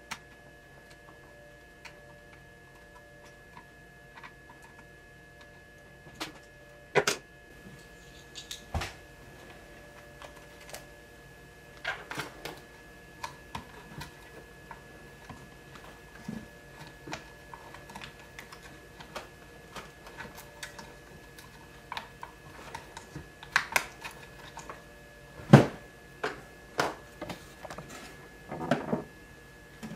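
Hex screwdriver and hands working on an RC buggy's screws and plastic gear covers: scattered small clicks, taps and plastic knocks, with a few louder knocks as the car is handled near the end. A faint steady high hum runs underneath.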